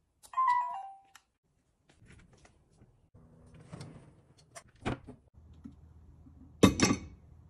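A short electronic chime of a few falling tones about half a second in, then scattered clicks and knocks of kitchen fittings being handled, including a pull-out cabinet drawer, and two loud knocks close together near the end.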